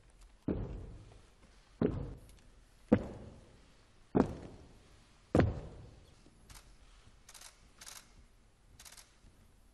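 Honour guard's boots striking the floor in a slow ceremonial march: five heavy, evenly spaced steps about a second apart, each echoing in the large hall. A few faint clicks follow in the second half.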